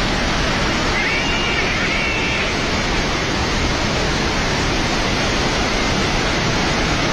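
Loud, steady rush of floodwater.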